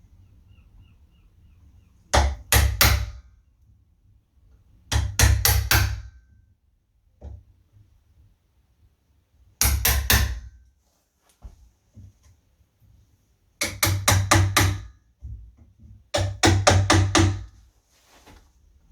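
Hammer blows on a wood chisel, cutting away a little wood from the latch recess in a door edge, in five short bursts of rapid knocks a few seconds apart.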